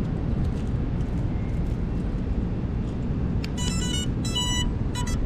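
Three short groups of electronic beeps from an FPV cinewhoop drone's motors, the startup tones played as the battery is plugged in and the speed controllers arm, over a steady low rumble.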